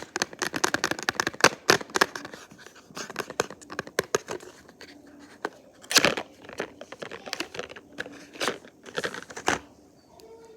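Packaging being torn open and crinkled by hand: a dense run of crackling in the first couple of seconds, then scattered louder snaps and rips.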